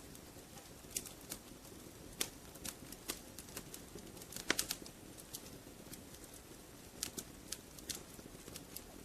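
Wood fire crackling in a fireplace: irregular sharp pops and snaps over a low steady hiss of flames, with a quick cluster of louder pops about halfway through.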